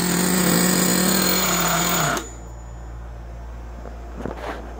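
Traxxas T-Maxx RC truck's nitro engine idling steadily, then cutting off abruptly about two seconds in.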